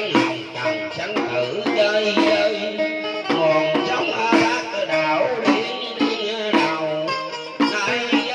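Vietnamese ritual music (nhạc lễ): a plucked string instrument playing a melody of short, bending notes over regular hand-drum strokes.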